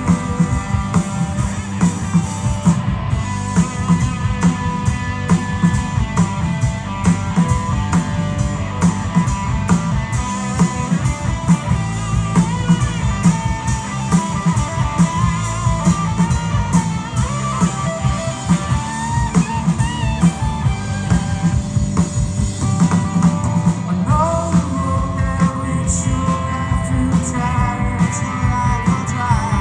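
Live rock band playing a song: guitars over a drum kit keeping a steady beat, with singing.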